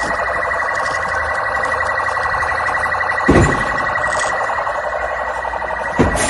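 Rio de Janeiro military police patrol car siren sounding continuously in a rapid, fast-pulsing electronic warble. Twice, about three seconds apart, a short louder low sound breaks in over it.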